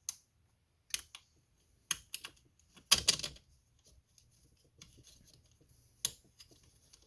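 Small metal parts clicking and clinking as a bolt, washer and chain roller are handled and fitted: a handful of sharp separate clicks, the loudest a short rattle about three seconds in.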